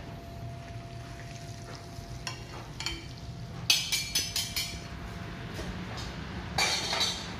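Eggs frying in a large pan on a galley range while a cook stirs them with a metal skimmer, over a steady low hum. A quick run of metallic clatters comes about halfway through, and another short one near the end.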